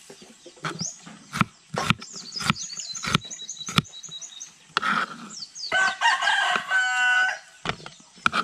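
A kitchen knife chopping red onion on a plastic cutting board, in sharp, irregular taps, with high chirping calls throughout. About six seconds in, a rooster crows once, the loudest sound.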